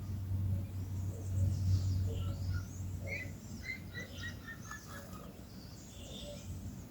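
Several songbirds chirping and calling, with short quick notes and gliding whistles overlapping, and a run of short stepped notes a little past halfway. A low steady rumble underneath fades out about halfway through.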